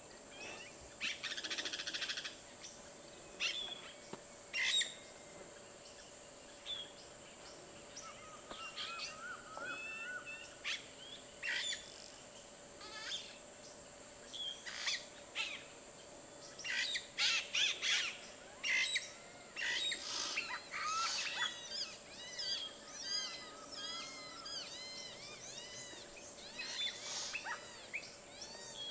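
Yellow-rumped cacique calling: a varied string of sharp clicks, short whistles and liquid notes, turning in the last third into a quick run of repeated arching notes. A steady high-pitched tone runs behind it.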